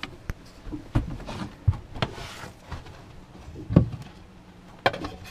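Wooden floor hatch cover over a bilge access being handled: a series of knocks and clunks with a brief scrape about two seconds in, the loudest knock near the end.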